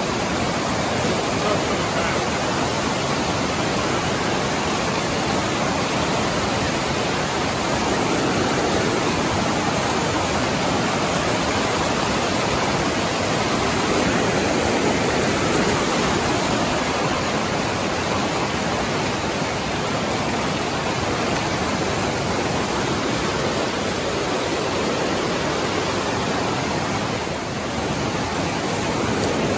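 A large waterfall and the whitewater below it rushing steadily over rock.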